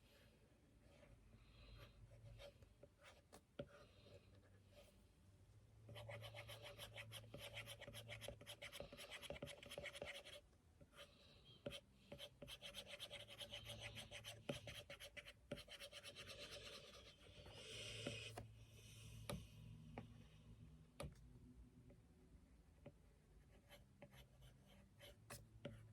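Faint scratching of a drawing tool making quick repeated strokes, like shading. It comes in two busy stretches, from about a quarter of the way in to about three quarters, with sparser single strokes before and after.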